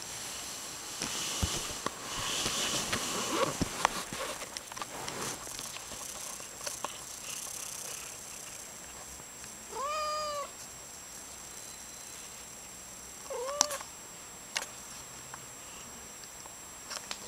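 A cat meows twice: a clear call of about half a second about ten seconds in, and a shorter one a few seconds later. Before the calls there is scratchy rustling with sharp clicks as the cat paws and bites at a camera strap close to the microphone.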